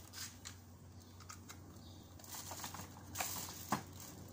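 Small handling clicks and rustles as a power cord and plug are handled, ending in a couple of sharp plastic clicks, one of them loudest shortly before the end, as the plug is pushed into an extension socket. The drill is not running.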